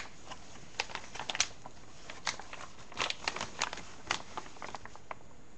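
Packaging rustling and crinkling by hand in short, irregular bursts as a rifle upper is unwrapped.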